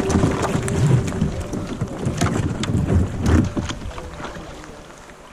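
Kayak paddle strokes splashing and dripping through calm, icy sea water, with sharp clicks and knocks as the kayak moves through small floating ice. The strokes get quieter over the last second or two, with some wind on the microphone.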